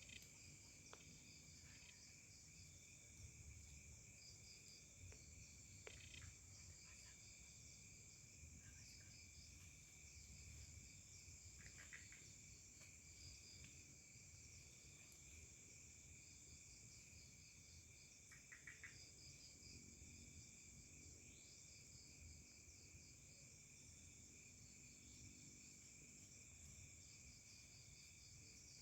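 Faint forest insect chorus: several crickets trilling steadily at different high pitches, one of them in a quick pulsing rhythm, with a few short chirps now and then.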